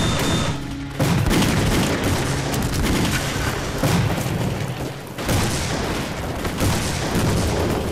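Battle sound effects: continuous gunfire and heavy explosions, with a sudden loud blast about a second in.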